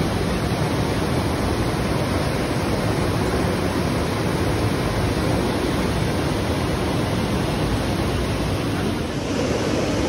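Steady rush of a river's flowing water, an even hiss with no pauses.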